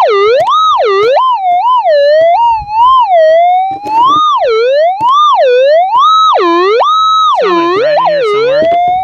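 Minelab GPZ 7000 metal detector's audio tone warbling up and down in pitch again and again as the coil is swept back and forth over a target in a bedrock crack, twice holding at its high pitch for about a second in the second half. The repeated rises are the detector's signal for a loud buried metal target, which the detectorist hopes is a gold nugget and not junk.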